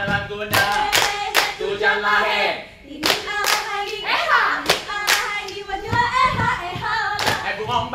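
Saman dancers singing an unaccompanied Acehnese chant while clapping their hands in rhythm, the sharp claps falling between and over the sung lines. There is a brief break about three seconds in.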